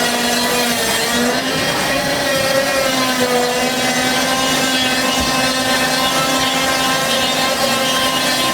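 Water-powered sawmill machinery running with a steady droning hum that wavers slightly in pitch.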